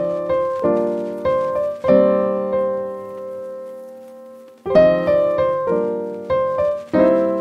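Background piano music: chords struck about every half second, with one chord left ringing and fading for nearly three seconds in the middle before the playing resumes.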